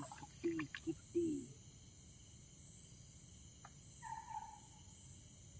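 Crickets and other night insects chirping steadily in a high, even drone. A few faint, short voice sounds come in the first second and a half, and a faint brief call about four seconds in.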